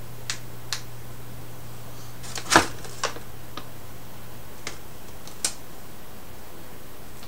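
Scattered sharp clicks of an Inova T2 LED flashlight's tail-cap switch being pressed and the light handled, about eight in all, the loudest a knock-like cluster about two and a half seconds in. A steady low hum runs underneath.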